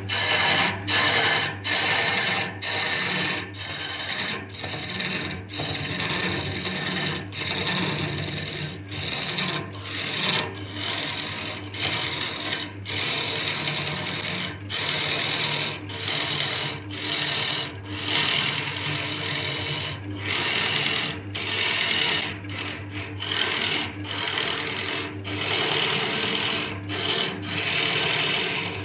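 Wood lathe running with a turning tool cutting the spinning wood: a steady motor hum under a scraping hiss that breaks off briefly about once a second.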